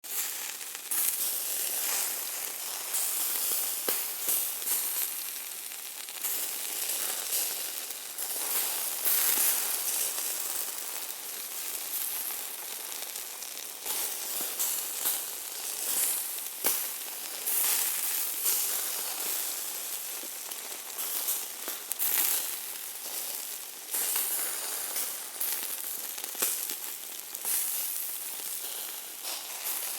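Hamburger meat sizzling in hot fat, a steady high hiss broken by frequent sharp crackles and pops.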